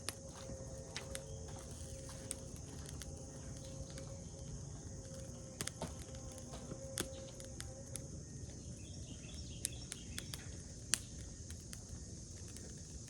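Outdoor ambience: insects droning steadily at a high pitch, with a low rumble and scattered faint clicks and ticks.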